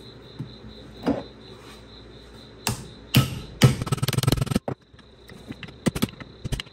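Hammer striking a chisel held against a stuck wheel-bearing inner race on a 1997 Honda Accord front hub, metal on metal, to split the race along a ground groove. A few sharp strikes come first, then a quick hard run about halfway through, then lighter taps near the end.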